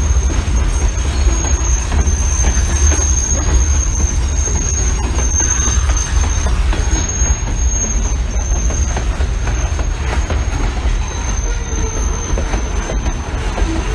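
CSX freight train rolling by with a continuous high-pitched wheel squeal over a heavy low rumble.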